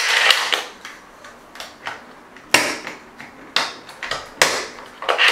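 Plastic parts of a Little Tikes Builder Bot toy robot clicking and knocking as pieces are pushed and snapped onto it by hand: three sharp clicks about a second apart in the second half, with fainter taps between.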